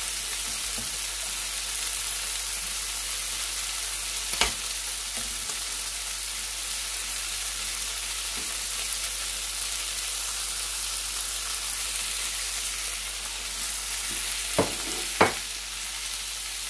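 Chicken pieces sizzling steadily in oil in a frying pan, while cooked basmati rice is stirred in a steel pot with a metal spoon. The spoon knocks sharply against the pot once about four seconds in and twice near the end.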